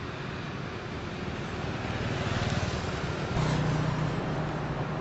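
Road traffic: motorbike and car engines and tyre noise passing on a street. A little over three seconds in, a nearer engine's steady low hum grows louder.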